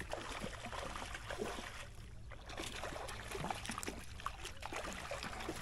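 A hooked fish thrashing at the water's surface close to shore, a run of irregular splashes that starts suddenly, as it is brought to a landing net.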